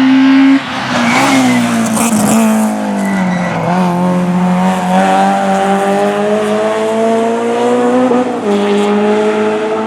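Race car engine running hard at high revs, its pitch sliding down over the first few seconds and then climbing slowly as it accelerates, with a sudden drop about eight seconds in that marks an upshift.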